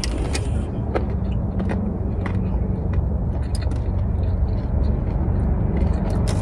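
Steady low rumble with many small, scattered clicks and taps over it.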